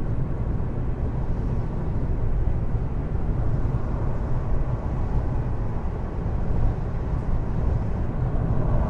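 Steady low rumble of a car on the move: engine and tyre noise, even throughout.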